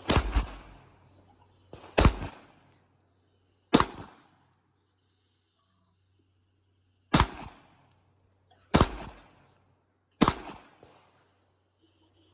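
Six single gunshots from a Glock 19 in a Micro Conversion Kit (MCK) carbine chassis. They are fired one at a time, one and a half to three and a half seconds apart, and each has a short echoing tail.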